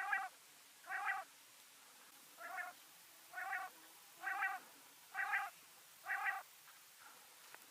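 Female common quail calling: seven short, nasal, mewing notes about a second apart, with one slightly longer gap, stopping near the end.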